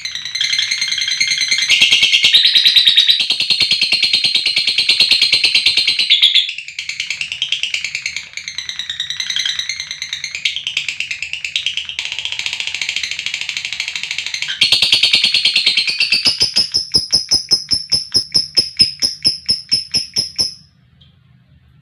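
Lovebird 'ngekek': a long, rapid, high-pitched trilling chatter with brief breaks. Near the end it turns into a string of separate sharp chirps that stops suddenly.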